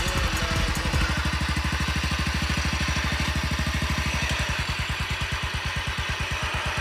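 Lifted off-road lawn tractor's engine running at low revs as the mower crawls over rough ground, with a steady, even pulsing beat.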